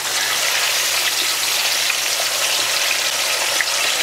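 Unfloured chicken drumettes deep-frying in hot oil: a steady sizzle with many small crackles.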